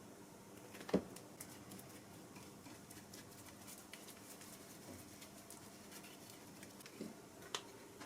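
Faint handling sounds over a low steady hum: scattered small clicks and taps, with a sharp knock about a second in and two lighter knocks near the end.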